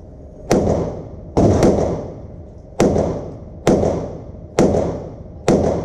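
SIG Sauer P365 9mm pistol firing seven shots at roughly one-second intervals, two of them in quick succession about a second and a half in, each shot followed by a short echoing tail.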